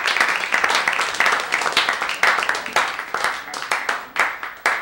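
Audience applauding with a dense clatter of hand claps that thins out and fades near the end.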